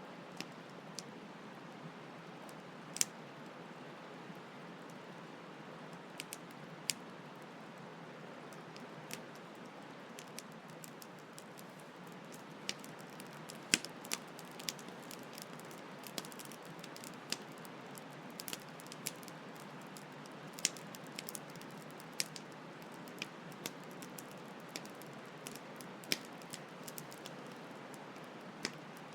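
Campfire crackling, with irregular sharp pops of burning wood, a few much louder than the rest, over a steady hiss of flowing stream water.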